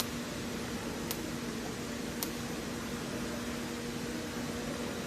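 Steady electrical hum and hiss from a robotic argon-arc (TIG) welding setup. Three sharp clicks come about a second apart in the first half.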